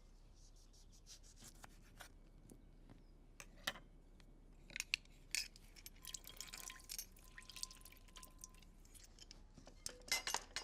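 Lime juice being squeezed into a pan: soft drips and small splashes of liquid, with scattered light clicks and knocks.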